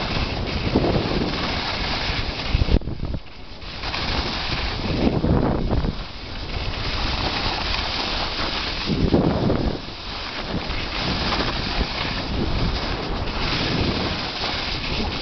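Wind rushing over the microphone of a camera carried by a downhill skier, swelling in gusts, with a brief lull about three seconds in.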